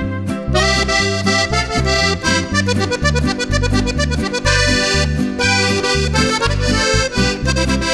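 Instrumental intro of a song: an accordion plays the melody over a bass line that alternates between low notes in a steady rhythm.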